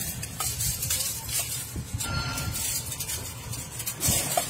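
Irregular scraping and light metallic clatter of hand work, with occasional small knocks.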